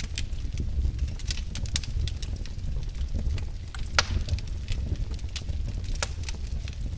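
Wood fire burning in a fireplace, crackling with irregular sharp pops over a low rumble of the flames; the loudest pop comes about four seconds in.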